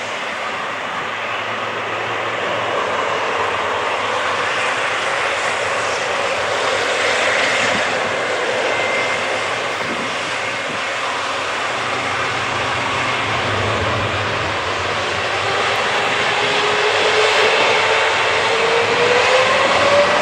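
Boeing 777 freighter's twin GE90 turbofans running on the runway, then spooling up near the end with a steadily rising whine as take-off thrust is set.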